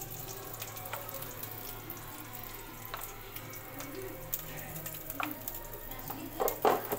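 A plastic spoon tapping against a steel mixer-grinder jar as coriander powder is tipped onto the ground masala paste: a few light clicks, then a couple of louder knocks near the end, over a steady background hiss and hum.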